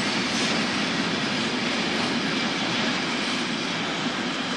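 Container freight train's wagons rolling past: a steady noise of steel wheels on rails, easing slightly near the end.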